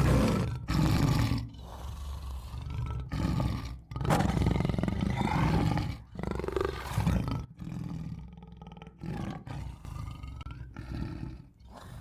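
A large wild animal roaring and growling in a series of loud calls, each lasting a second or two, weaker toward the end.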